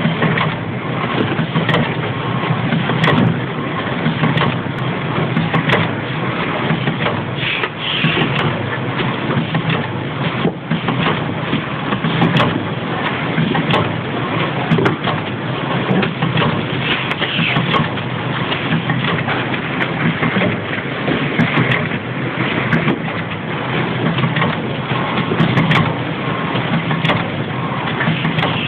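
Horizontal flow-wrap packaging machine running steadily, a continuous mechanical clatter with many small rapid clicks over a low hum.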